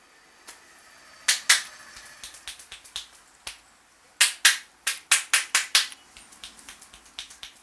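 Sharp claps and snaps from a barber's hands during an Indian head massage, in irregular runs. There are two loud ones about a second in and lighter ones after, then a quick run of about seven loud ones in the middle, easing to lighter snaps near the end.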